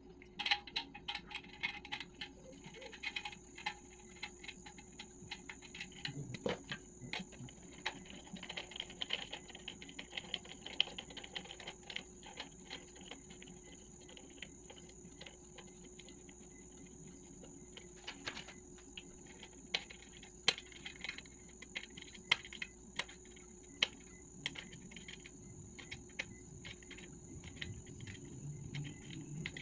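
Scattered light clicks and clinks of a mirror stand's frame parts being handled and a plastic knob being screwed onto a bolt. A steady high-pitched tone sounds behind them from about two seconds in.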